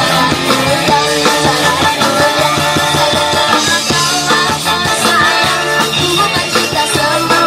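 Rock music with a driving beat, guitars and singing.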